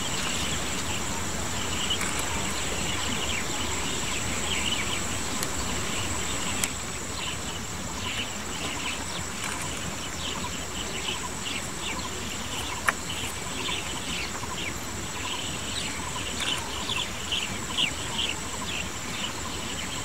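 A steady, high-pitched insect drone runs throughout, with many short higher chirps that grow more frequent in the second half. A single sharp click sounds about 13 seconds in.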